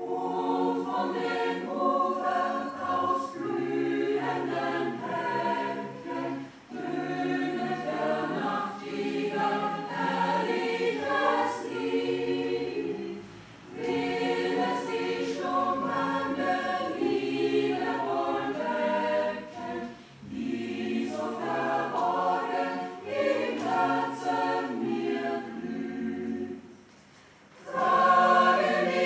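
Mixed choir of women's and men's voices singing in phrases with short breaks between them, then a pause of about a second near the end before they come back in louder.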